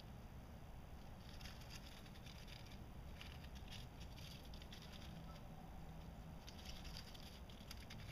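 Faint, irregular rustling and crackling of dry oak leaves as a shrew scurries through them, starting about a second in and coming in short clusters.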